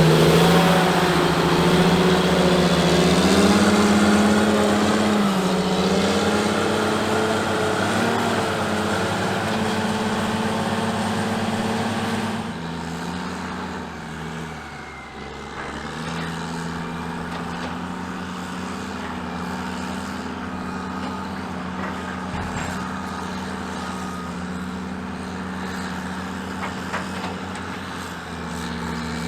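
Caterpillar 627G twin-engine scraper's diesel engines running loud with shifting pitch. About twelve seconds in the sound drops suddenly to a quieter, steadier run.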